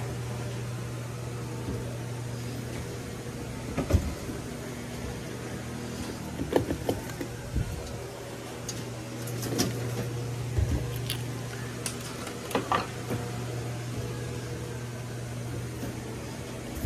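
Steady low hum of a claw machine, broken by a few short clicks and knocks.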